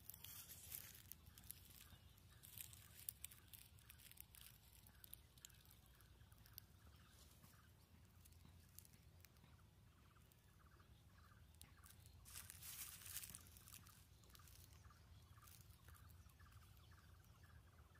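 Faint outdoor ambience: a low steady rumble with scattered light clicks and a brief rustle about two-thirds of the way in, and a faint short call repeated about twice a second.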